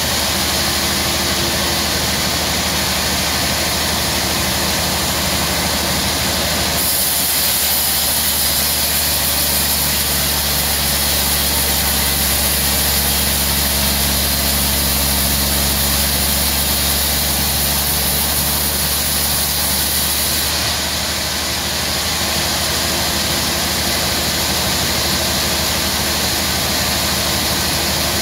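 Sawmill band saw headrig running with a steady machine drone; from about 7 s to 20 s the blade cuts through a log, adding a louder, higher-pitched sawing noise.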